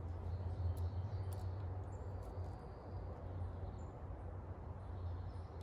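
A few faint clicks of a 3 mm Allen key working the rear screw of an aluminium rifle chassis, over a steady low hum.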